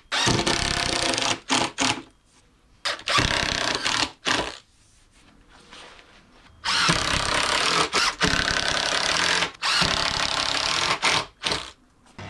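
Cordless drill pre-drilling and driving screws into chipboard panels. It runs in bursts of about a second to a few seconds, with short pauses between; the longest pause comes about halfway through.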